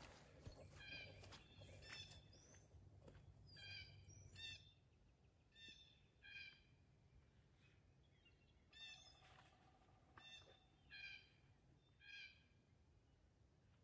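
Faint bird calls: about ten short calls, several of them in pairs, with a faint low hum in the first few seconds.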